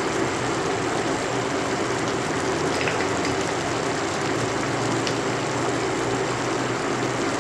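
Raw mango chutney, chopped mango in sugar syrup, boiling hard in a steel pot, giving a steady bubbling.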